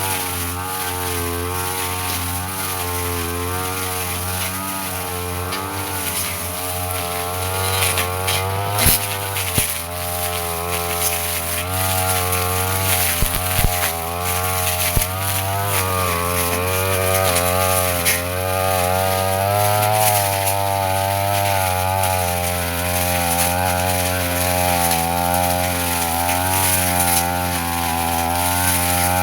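Petrol brush cutter running at part throttle while cutting grass and undergrowth, its engine speed rising and falling slightly under the changing load. A few sharp knocks break in about a third and half of the way through.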